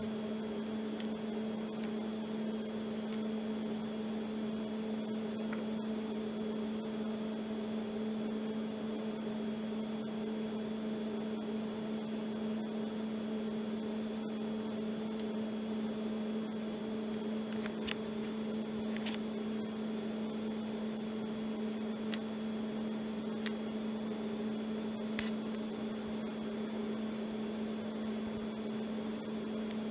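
Steady electrical hum with two even tones over a constant hiss, with a few faint clicks in the second half.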